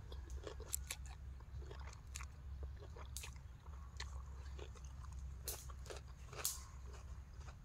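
Close mouth sounds of a person chewing spicy papaya salad with rice noodles: scattered wet clicks and small crunches over a steady low rumble.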